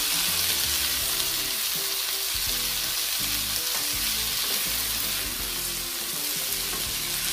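Mixed vegetables (broccoli, carrots, bell peppers, onion) sizzling in hot oil in a frying pan while being stirred and tossed with a spatula; a steady frying hiss.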